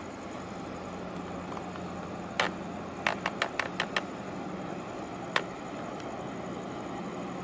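Steady low hum and noise of a 2,200-TEU container ship's machinery as it passes close by. A sharp click sounds about two and a half seconds in, then a quick run of six clicks, then one more click near the end.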